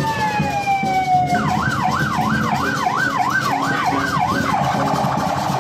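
Electronic siren: a long falling wail gives way, about a second and a half in, to a fast up-and-down warble of about two cycles a second, which settles into a steady tone near the end.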